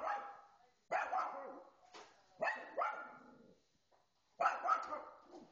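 Small dog barking excitedly at a television: about six sharp barks in short runs, some in quick pairs, with pauses of about a second between them.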